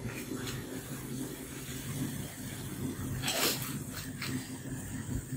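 Green bell peppers and sausage frying in a wok over a portable gas burner: a steady hiss with a low hum, and a few short shakes of a seasoning bottle a little after three seconds in.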